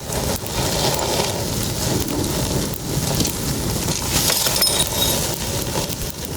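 Campfire cooking sounds: steady crackling and sizzling over hot coals, with many small clicks and a short metallic clink about four and a half seconds in.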